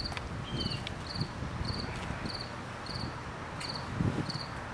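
A cricket chirping steadily, about two short chirps a second, over a low rumble.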